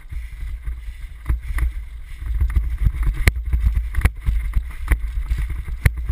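Rumble and wind buffeting on a helmet-mounted action camera's microphone while moving along a dryland trail, with scattered sharp knocks and clicks.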